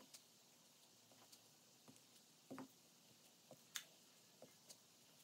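Near silence with a few faint clicks and taps of small plastic ink pad cases and lids being handled and set down on a craft mat; the sharpest click comes a little under four seconds in.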